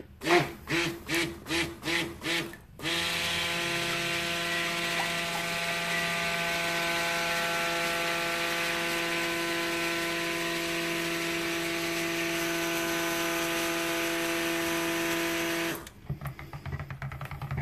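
Stick (immersion) blender in a bowl of cold process soap batter, first pulsed in a few short bursts about twice a second, then run steadily for about thirteen seconds with an even motor hum, stopping near the end. It is blending the oils and lye solution together into soap batter.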